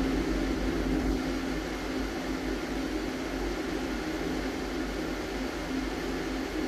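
Steady mechanical hum with a low rumble, unchanging throughout: room background noise, such as ventilation.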